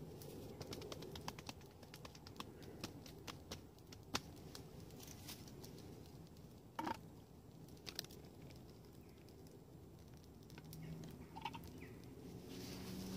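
Wood campfire crackling, with irregular sharp pops over a low steady rush.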